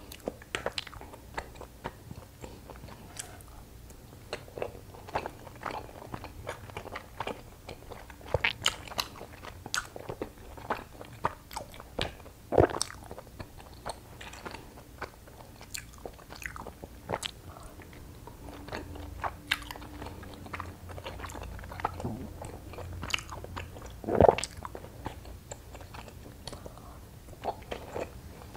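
Close-miked chewing of soft, sticky rice cakes: a steady run of irregular wet mouth clicks and smacks, with two louder ones near the middle and about three quarters through.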